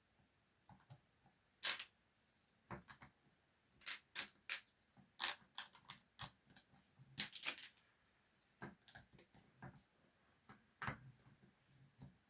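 Irregular light clicks and taps of small hard objects being handled, unevenly spaced and most frequent in the middle.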